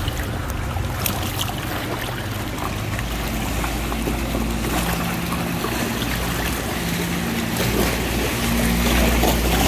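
A boat engine's low steady drone over sea water sloshing and wind noise. The drone grows louder about three seconds in and again near the end.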